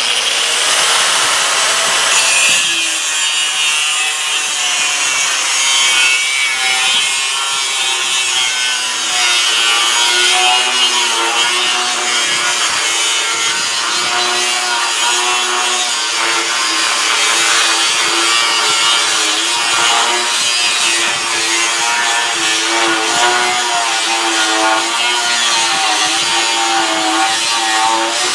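An unguarded angle grinder cutting through the steel rail of a square hay baler with a cut-off wheel. The wheel gives a steady, loud hiss against the metal, and the motor's whine wavers in pitch as the wheel is pushed into the cut.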